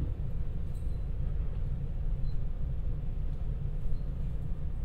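Steady low rumble of a JR West 223-series electric train heard from inside the carriage as it rolls slowly into a station along the platform.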